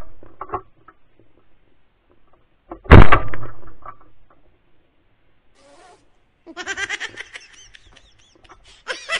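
A shotgun shot about three seconds in, dying away over about a second, with the fading tail of an earlier shot at the very start. In the last few seconds a bird gives rapid runs of harsh calls.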